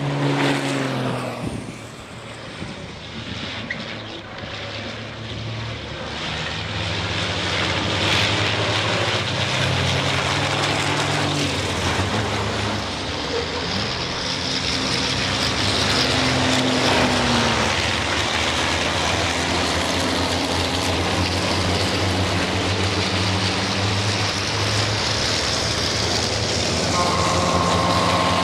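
Several race trucks' diesel engines running at racing speed, their pitch stepping and sliding as they accelerate, lift off and change gear, the sound building as the pack comes closer.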